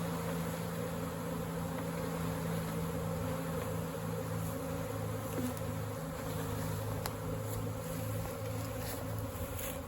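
Steady buzzing of a large honey bee swarm being hived, its bees marching into the hive box after their queen.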